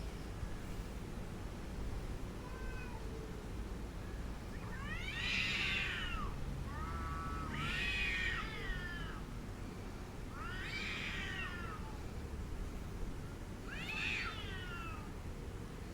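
Domestic cat yowling angrily: four long drawn-out wails a few seconds apart, each rising then falling in pitch, after a faint shorter call. A steady low rumble runs underneath.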